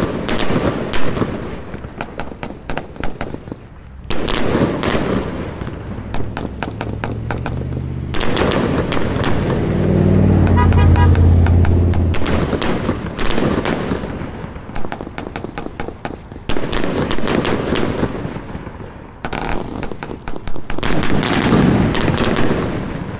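A 49-shot 500 g firework cake firing in waves of shots. The bursts break into dense crackling, and a deeper rumble builds up in the middle.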